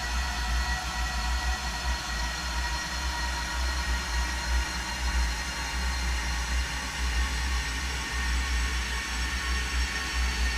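A recording of an on-stage coughing fit slowed down more than twentyfold, heard as a steady low rumble with sustained tones above it.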